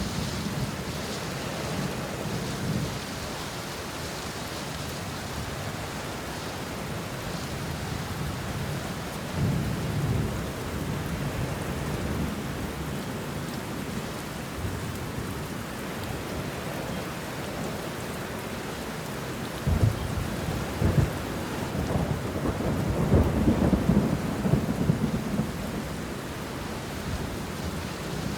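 Steady rain falling on banana leaves and bushes, with rolls of thunder: a rumble about ten seconds in, and the loudest, longest rumbling from about twenty to twenty-five seconds in.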